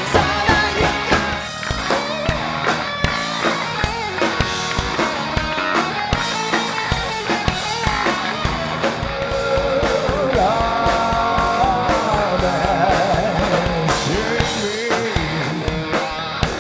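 Rock band playing live: a drum kit keeps a steady beat under electric guitar and singing. A held, wavering note comes in about ten seconds in.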